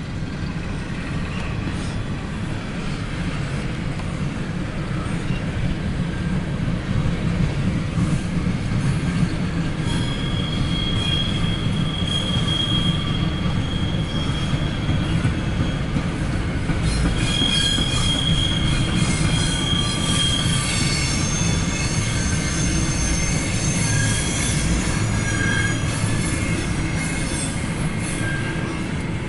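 Empty steel coal hopper cars rolling past: a steady low rumble of wheels on rail, with high-pitched squeals from the cars coming and going, clearest about ten seconds in and again a few seconds later.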